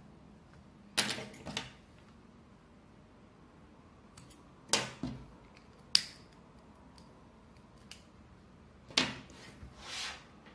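Several short, sharp clicks and light metallic rattles of small nails and tools being handled on a string-art board.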